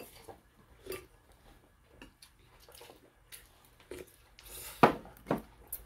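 Scattered light clicks and taps of metal spoons and chopsticks against dishes and bowls during a meal, with one sharper clink a little before the end.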